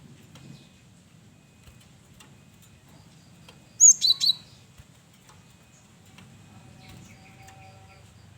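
Male cinereous tit (gelatik batu) calling: a quick loud burst of three or four sharp, high, bending notes about four seconds in. Fainter short chirps come and go around it.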